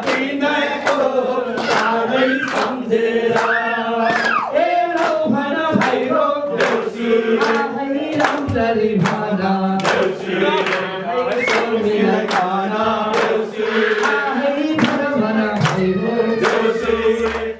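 A group of men and women singing a Deusi-Bhailo festival song together, with steady rhythmic hand claps keeping the beat.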